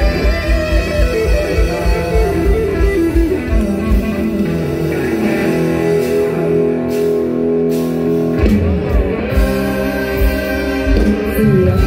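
Live mor lam band playing an instrumental passage: a plucked, guitar-like melody over a steady kick-drum beat. The drums drop out for about two seconds past the middle, then come back in.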